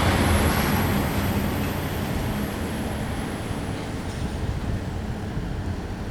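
A vehicle passing and moving away: a broad rumble that grows quieter over the first couple of seconds, with a faint high whine that dies out about four seconds in.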